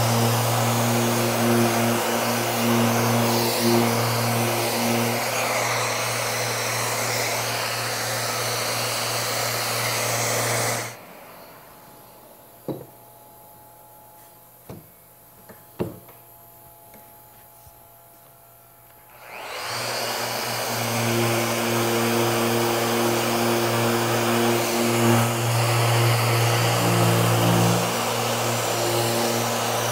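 Festool RO90 random-orbit sander with its vacuum running, sanding pine, a steady whirring with a low hum. It stops about a third of the way in; in the pause there are three short knocks of the board being handled, and the sander and vacuum start up again a little past halfway and run on.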